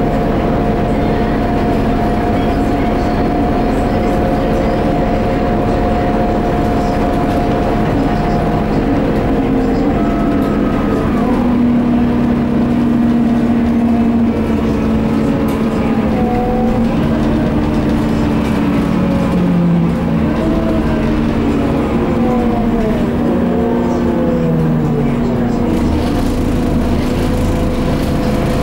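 Interior of a Scania K230UB bus under way: the 9-litre five-cylinder turbo diesel running with the whine of its ZF six-speed automatic gearbox, quiet but audible. The whine holds steady at first, then falls and rises in pitch several times from about ten seconds in, and a deeper engine rumble comes up near the end.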